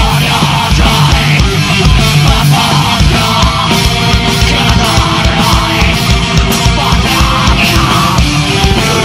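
Heavy metal band playing live: distorted electric guitars and keyboards over a fast, driving kick drum.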